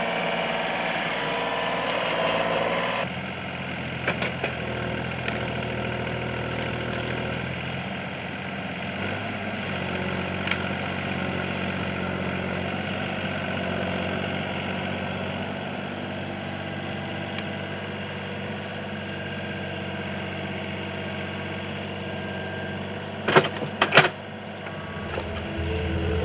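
Excavator engine running steadily while the machine works. Its note changes and drops slightly about three seconds in, and a few loud metallic clanks come near the end.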